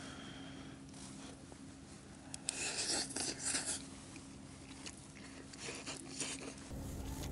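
Eating sounds: a spoon scraping rice in a bowl, with chewing and small clicks; the louder scrapes come about two to four seconds in.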